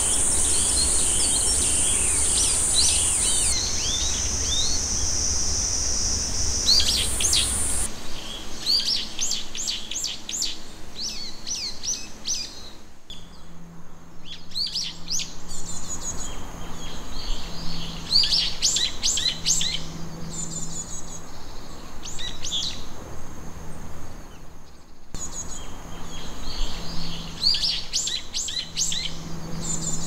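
Small songbirds chirping and singing in quick high calls, over a steady high-pitched cicada drone for the first several seconds that then stops.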